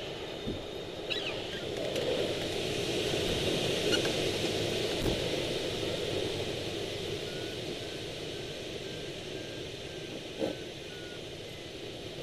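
Air rushing past the cockpit fairing of a Swift rigid-wing hang glider during wingovers, swelling a few seconds in and then easing as the airspeed changes. About halfway through comes a faint run of short, evenly spaced electronic beeps.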